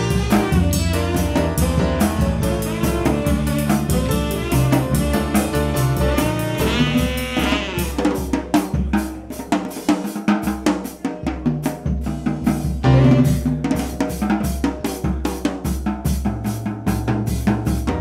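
Live jazz-funk band playing: tenor saxophone over a busy, prominent drum-kit groove, with bass and piano underneath. The bass drops away for a moment about ten seconds in.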